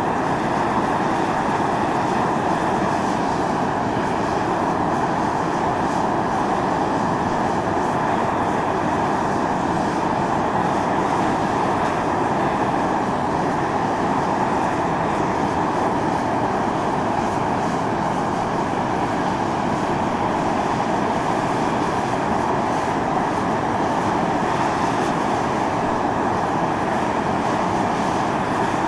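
Volcanic fumarole venting steam under pressure: a steady, unbroken rushing hiss, strongest in the middle range.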